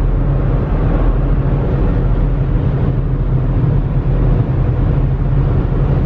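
Steady road noise inside a car cruising at highway speed: a constant low hum of engine and tyres.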